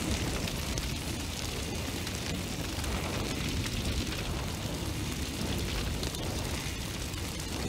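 A steady rushing roar of fire.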